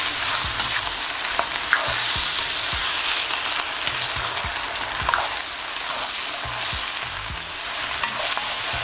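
Lamb pieces sizzling in hot oil in a non-stick karahi while being browned over medium-high heat, stirred with a spoon that knocks and scrapes against the pan now and then.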